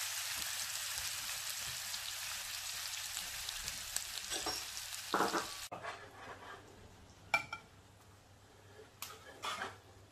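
Octopus tentacles frying in hot olive oil with garlic and herbs, a steady sizzling hiss that stops abruptly about halfway through. After that come a few short clicks of metal tongs against the pan and plate.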